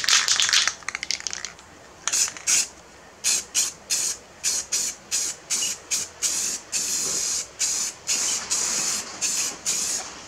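Aerosol spray paint can hissing in many short bursts, about three a second, then in a few longer sprays near the end.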